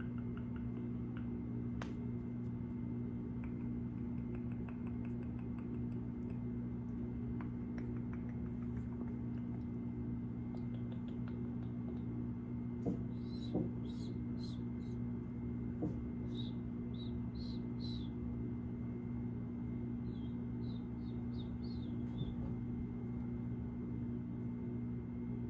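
A steady low hum, with a few soft clicks about halfway through and short runs of high, squeaky chirps in the middle part.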